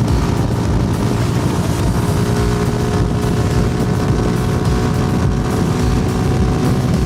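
Suzuki Gixxer SF single-cylinder motorcycle engine and exhaust running at a steady pitch while the bike is ridden, with wind rushing past.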